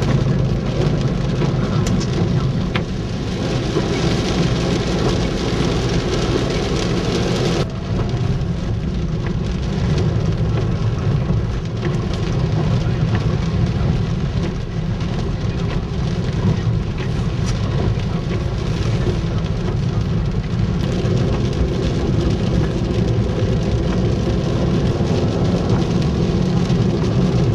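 Steady rain with a constant low rumble under it. About eight seconds in, the sound changes abruptly and the high hiss drops.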